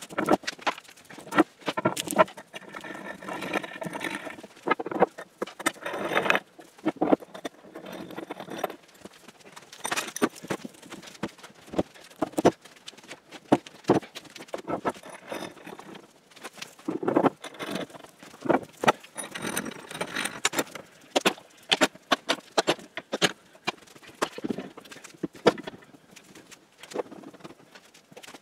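Pipe clamps and wooden cauls being set and tightened on an oak tabletop glue-up: irregular clanks, clicks and knocks of metal clamp parts against pipe and wood, with short scraping slides of clamp jaws now and then.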